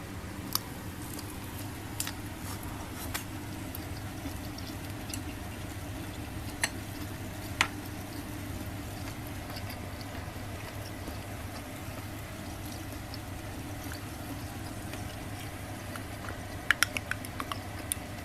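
Squid grilling on a wire net over a solid-fuel mini fire stand: a steady sizzle with scattered sharp pops, and a quick run of pops near the end.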